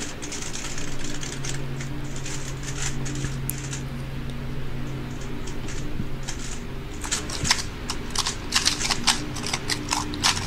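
A 3x3 speedcube being turned at speed-solving pace, making rapid, dense clicking and clacking that starts about two-thirds of the way in. Before that there are only a few soft clicks from handling the cube, over a steady low hum.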